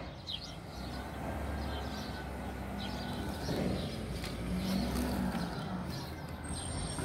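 Low, steady rumble of a vehicle engine, with a faint hum in it and a few bird chirps above.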